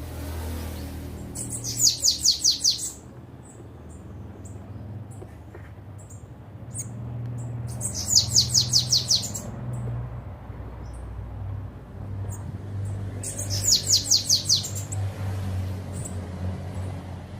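Bananaquit singing: three short songs, each a quick run of high, down-slurred notes, about five seconds apart, over a low steady hum.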